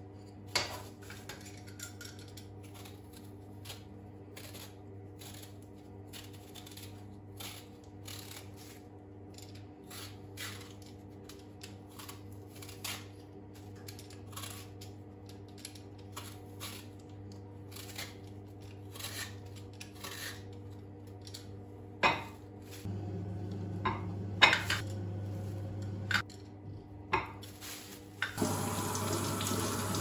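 Small knife cutting and peeling quinces by hand: soft scrapes and small clicks over a low steady hum. Near the end come several sharper knocks of a pan or dishes, then a tap running into the sink.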